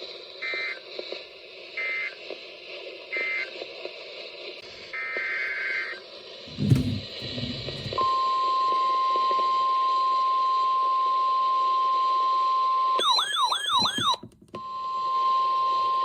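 NOAA Weather Radio Emergency Alert System tones: three short two-tone digital data bursts, the end-of-message code for the warning just read, then a longer data burst. About eight seconds in, the steady 1050 Hz weather-radio alarm tone starts. It is broken after about five seconds by roughly a second of warbling electronic chirps, then resumes. There is a low thump about a second before the steady tone begins.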